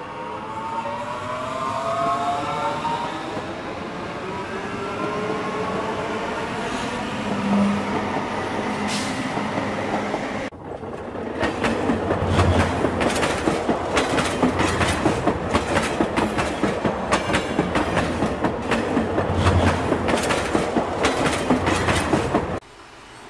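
Model electric train running on its track: for the first ten seconds or so a gliding motor whine over a steady running rush, then after a sudden change, rapid, steady clicking of the wheels over the rail joints, which cuts off abruptly near the end.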